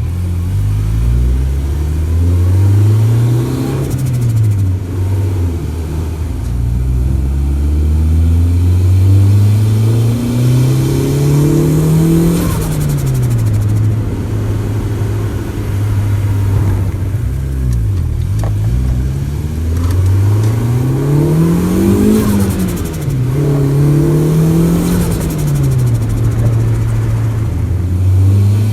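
Turbocharged Honda Civic D16Y4 1.6-litre four-cylinder engine revving up and falling back about six times as the throttle is worked. Turbo flutter chatters as the throttle closes.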